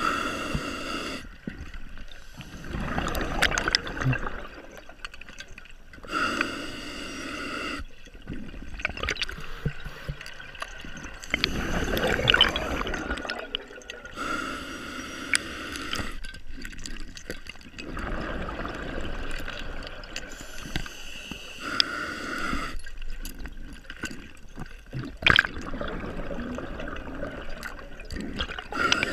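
Scuba diver breathing through a regulator underwater: a short hissing inhale followed by a longer stretch of bubbling exhaust, repeated about every seven seconds. A single sharp click sounds near the end.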